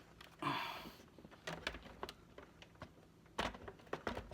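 Scattered plastic clicks and knocks from a DJ controller's casing being handled and fitted back together, with a short rustle about half a second in and a small cluster of clicks near the end.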